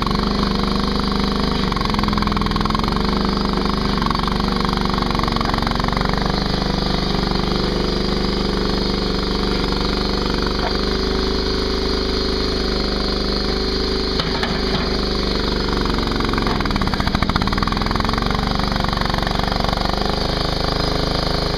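Ditch Witch SK300 mini skid steer's engine running steadily under work, its pitch shifting now and then, with a brief dip near the end.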